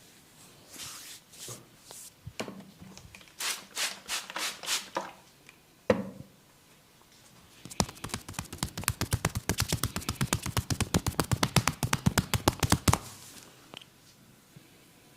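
A masseur's hands working on a body: a few rubs and slaps, one sharp snap about six seconds in, then a fast, even run of percussive hand taps, about ten a second, lasting some five seconds.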